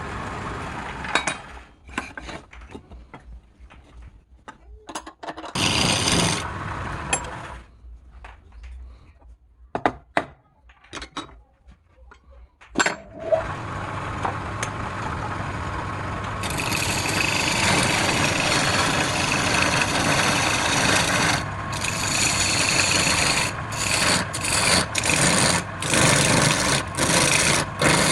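Wood being worked on a lathe. Knocks and handling sounds and a short spell of scraping come first, then about halfway through a steady scraping, rasping noise of a tool cutting the spinning wood sets in. It grows louder a few seconds later and breaks off briefly several times near the end.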